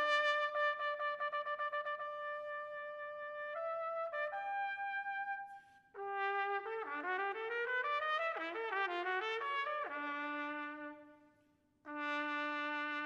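Solo trumpet playing an unaccompanied étude: fast repeated tongued notes on one pitch, then a few held notes and a short break. A quick run up and down follows, ending on a long low note that dies away into a second of silence before playing resumes near the end.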